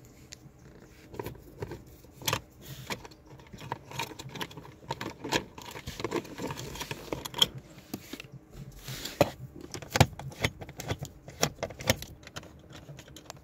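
Irregular small clicks and light rattles, several a second, of a Phillips screwdriver loosening screws in a car's plastic dashboard trim.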